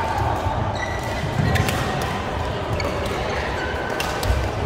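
Badminton rally: sharp racket hits on the shuttlecock, one about a second and a half in and one near the end, over footfalls and shoe squeaks on the court. Music plays underneath.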